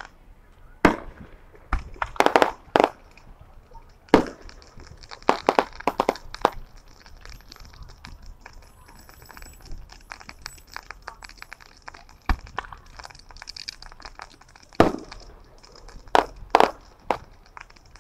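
Fireworks going off: sharp cracks and pops at irregular intervals, several coming in quick clusters, from a fountain and small aerial shells.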